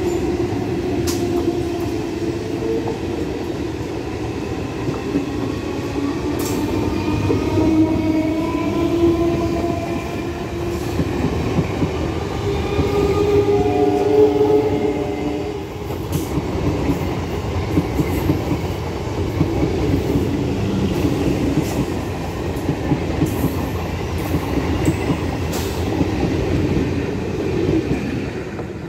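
Electric multiple-unit (EMU) local train running past close by: a steady rumble of wheels on rails with sharp clicks, and the whine of its electric traction motors sliding up and down in pitch. A steadier tone holds for about two seconds in the middle, and the noise drops away right at the end as the last coach goes by.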